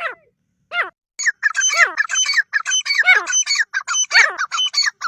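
Grey francolins calling: two short separate calls, then from about a second in a loud, rapid run of repeated calls from a pair.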